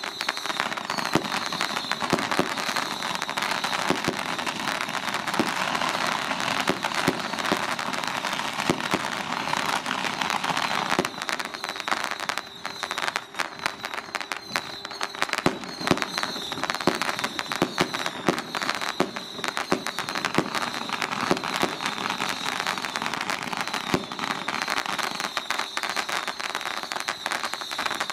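Strings of firecrackers going off in a dense, unbroken crackle of rapid bangs.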